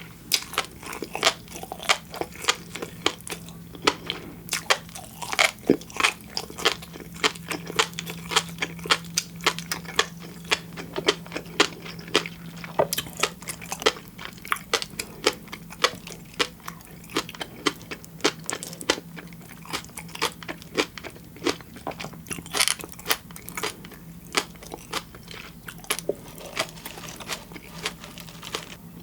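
Close-miked chewing of raw fish sashimi and flying fish roe (tobiko), a dense run of wet, crisp clicks and pops several times a second. A faint steady low hum runs underneath.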